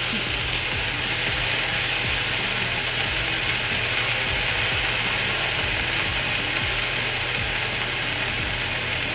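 Sliced red onions sizzling in oil on a griddle pan, with a steady hiss, while metal tongs stir them with irregular clicks and scrapes against the pan.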